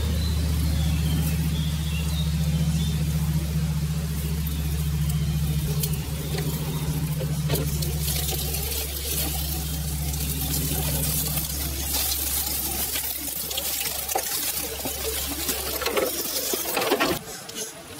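A steady low hum runs under the crackle of dry leaves and twigs as the Reely Free Men RC scale crawler drives over the forest floor. The crackling grows louder as the crawler passes close by near the end.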